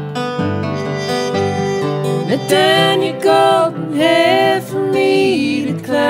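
Acoustic country-folk music played live: guitars over a steady low accompaniment, with a louder wavering lead melody line from about two seconds in.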